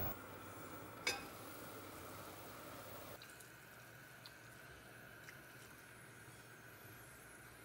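Milk poured in a thin stream into a pot of simmering broth, a faint liquid trickle, with one sharp clink about a second in.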